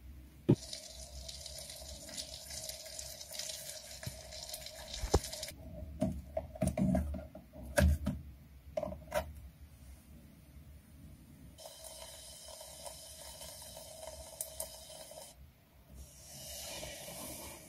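Oil and pancake batter sizzling in the heated base of an electric kettle, in stretches that start and stop abruptly. Around the middle, a metal fork clinks and scrapes against the kettle as it flips the pancake.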